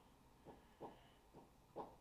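Near silence: quiet room tone with a few faint, soft bumps from tweezers and gloved fingers handling a pocket-watch-sized movement in its holder.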